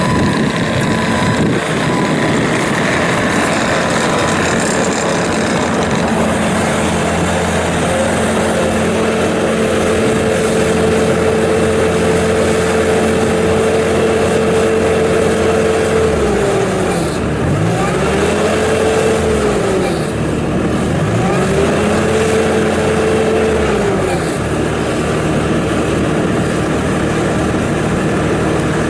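Bobcat T650 tracked skid steer loader's diesel engine running. Its pitch holds steady, then drops and climbs back three times partway through.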